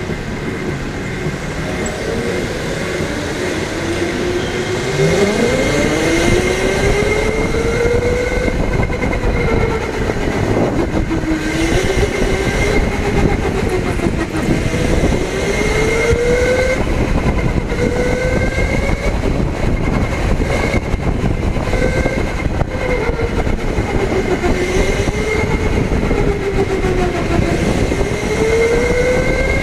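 Electric go-kart's drive motor whining, its pitch climbing steeply as the kart pulls away about five seconds in. It then rises and falls over and over as the kart accelerates out of corners and slows into them, over a steady high whine and rumbling tyre noise.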